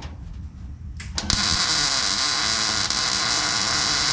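A welding arc on sheet-metal floor pans, starting with a couple of short crackles about a second in and then sizzling steadily as a tack weld is laid.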